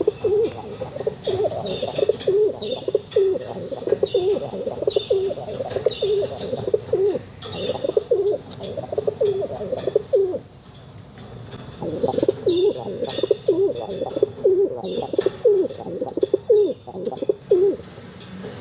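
Several pigeons cooing over one another in a steady chorus of low warbling calls, with a lull of about two seconds near the middle. Short, higher notes come and go above the cooing.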